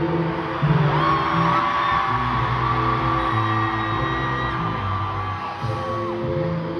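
Live band music in an arena, slow and sustained, with a long high note held for about five seconds, and the crowd yelling and cheering over it.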